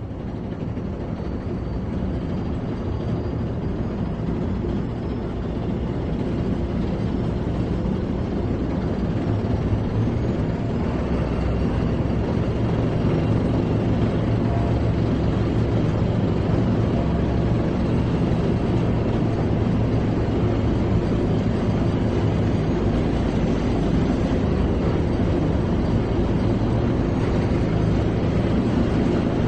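Sherman tank engine running with a heavy, steady low drone, dubbed in as a sound effect. It grows louder over the first several seconds, then holds steady.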